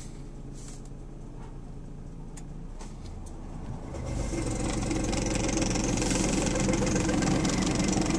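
2003 Lexus GS300's inline-six engine running, with a weird noise that sounds like the accessory belt but, the owner says, is not the belt; the tensioner pulley bearing has already been replaced. The sound gets markedly louder about four seconds in.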